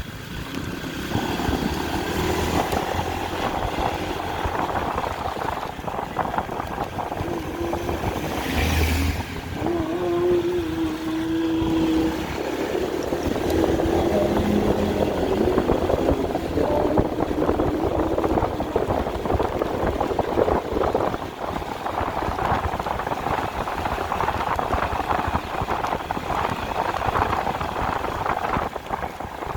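Steady engine and road noise from a vehicle on the move. A steady tone rises out of it around ten seconds in and fades a few seconds later.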